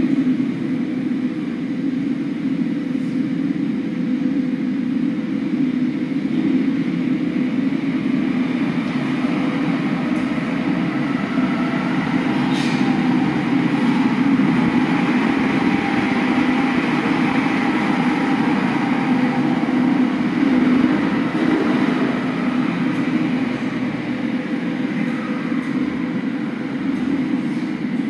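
Steady low rumbling noise with a faint steady hum, played as the installation's audio track; a brief high sweep sounds about twelve seconds in.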